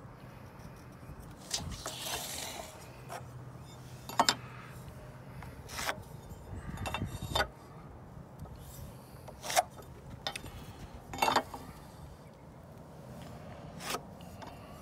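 Light clicks, taps and scrapes of a metal speed square and pencil against pressure-treated lumber as cut lines are marked: about eight short knocks spread out, with brief scraping between them and a faint low hum under the first half.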